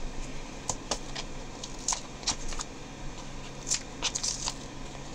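Tape being peeled off a kraft cardboard sleeve as it is handled: irregular short crackles and rustles.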